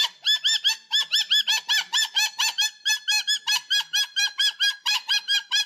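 Pet parrot calling in a fast, unbroken string of short, high squawks, about six a second. The bird is worked up and not settling down.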